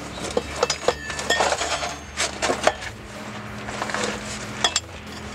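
Pickle fork prying between a Toyota Tacoma's front differential and the inner joint of its CV axle, giving a string of irregular metallic clinks and knocks as the axle is worked loose from the differential.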